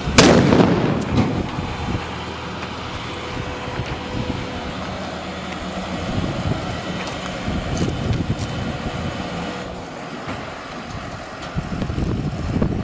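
Engine of an armoured military jeep running as it moves past close by, a steady drone with a held hum. A loud bang or thump comes right at the start and fades over about a second.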